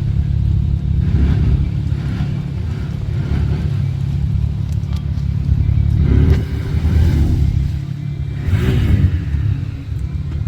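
ATV engine running and revving, with its pitch rising and falling about six seconds in and again about eight and a half seconds in.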